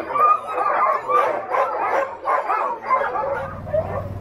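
A team of Alaskan huskies yipping, barking and whining over one another, eager to run as they strain in harness to pull the cart. A low, steady motor hum comes up near the end as the cart starts moving.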